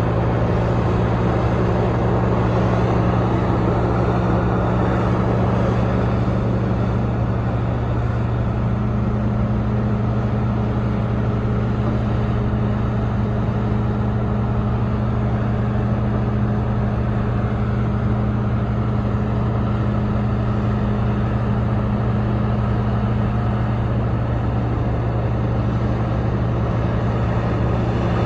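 Heavy diesel engine of mining machinery, an excavator or haul truck, running with a steady low drone. Its pitch rises a little about eight seconds in and settles back down near the end.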